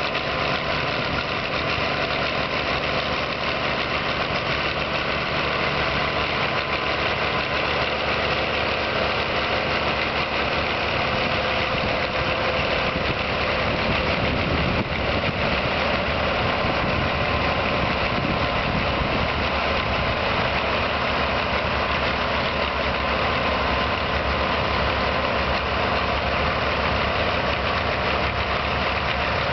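Muir Hill 121 tractor's six-cylinder diesel engine running steadily under load as it pulls a plough through the soil, a little louder around the middle of the pass.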